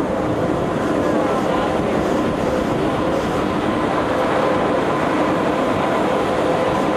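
Pilatus Railway electric rack railcar running on the steep rack line: a steady rumble and rattle of the car and its running gear, with a faint steady whine over it.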